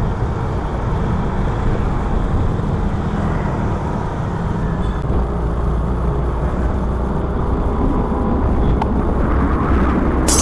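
Steady low rumble of wind and road noise from a vehicle moving along a city street, with engine noise underneath.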